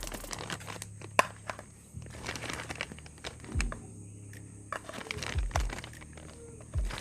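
Small toy kitchen pieces and their packaging being handled: scattered light clicks and taps, the sharpest about a second in, with some crinkling.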